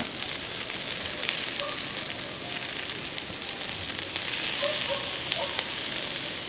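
Meat sizzling on a grill over hot charcoal: a steady hiss scattered with small crackles and pops.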